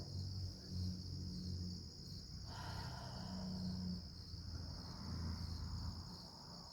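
Outdoor insect chorus: a steady, high-pitched drone that runs on without a break, over a faint low rumble.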